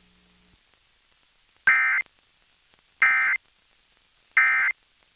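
Emergency Alert System end-of-message signal: three short bursts of SAME digital data tones, each about a third of a second long and a little over a second apart, marking the end of the alert.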